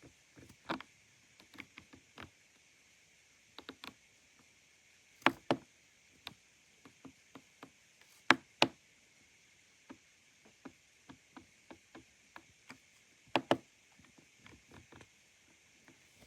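Keys on an Ajazz AK820 Pro gasket-mount mechanical keyboard pressed one at a time, giving scattered, irregular clacks. Three louder pairs of clacks stand out, about five, eight and thirteen seconds in.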